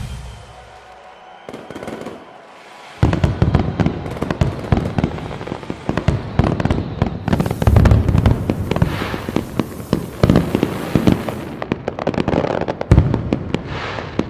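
Fireworks going off in a dense barrage of bangs and crackles, starting suddenly about three seconds in.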